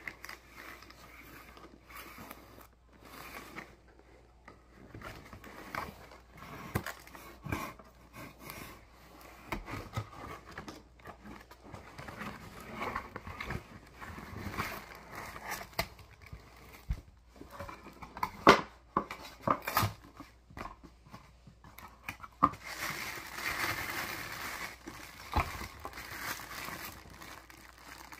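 A cardboard microphone box being opened by hand: the lid scrapes and taps as it is worked off and the inner flaps are folded back, with a few sharper knocks, the loudest about two-thirds of the way in. Near the end there is a few seconds of plastic packaging crinkling.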